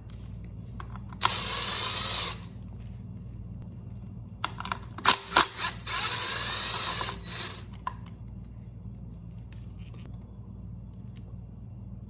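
A power driver runs twice, about a second each time, spinning out the bolts that hold the generator's stator, with sharp metal clicks of the tool and bolts in between.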